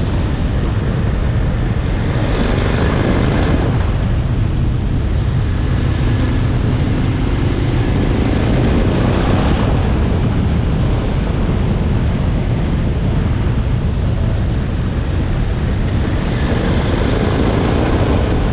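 KTM 1290 Super Adventure's V-twin engine running steadily at riding speed, mixed with heavy wind rumble on the microphone.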